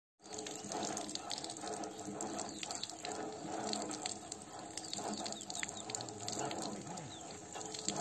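Thin stream of water pouring from a standpipe spout into a shallow stone trough, running steadily, with many small splashes as a rose-ringed parakeet bathes and flaps in the water.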